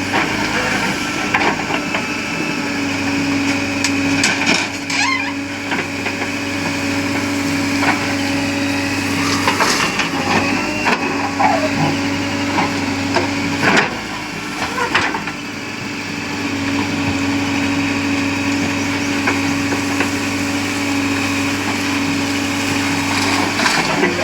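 Backhoe loader's diesel engine running, its steady note shifting and dropping out a few times, with scattered knocks and clattering impacts from the working machine and the material it handles.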